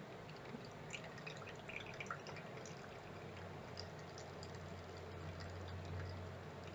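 Faint dripping and trickling of dirty water draining out of a toy mini washing machine. A faint low hum comes in about halfway.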